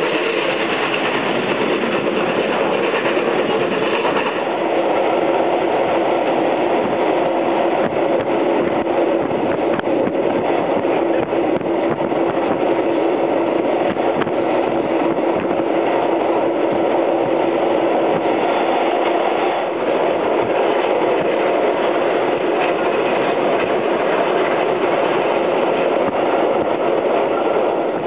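Steady running noise of a vintage steam-hauled passenger train at speed, heard from inside the carriage: wheels rolling on the rails with a steady hum beneath.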